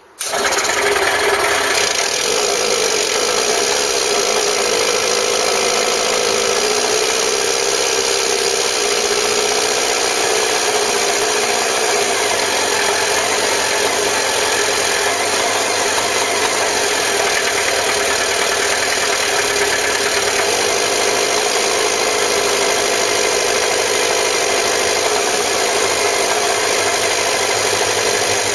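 Goggomobil T250's small air-cooled two-stroke twin engine catching at once and then running steadily. It is running again after years out of use.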